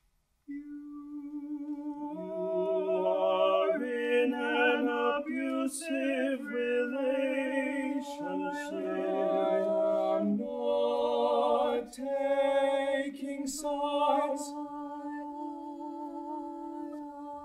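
Small vocal ensemble of men's and women's voices singing a cappella. A voice enters about half a second in and the others join about two seconds in, singing chords with vibrato and sharp 's' consonants. The last few seconds are a softer held chord.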